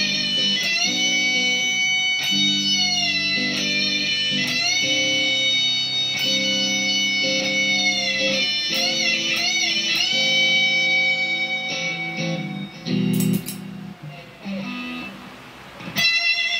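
Heavily distorted electric guitar, a Squier Bullet Strat through a Marshall Silver Jubilee amp with Greenback speakers, playing a lead line of long held notes. Some notes are bent and one stretch a little past halfway has wavering vibrato. After about twelve seconds the playing thins to short, sparse notes.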